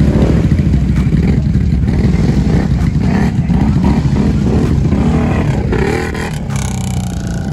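A Can-Am ATV's V-twin engine revving up and down hard under load as the quad churns through deep muddy water, with splashing from the spinning tyres. The revving eases slightly about six seconds in.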